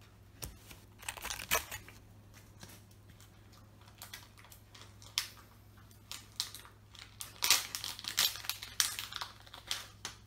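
Foil trading-card booster-pack wrapper crinkling and being torn open, in scattered short crackles with a busier stretch about three-quarters of the way through.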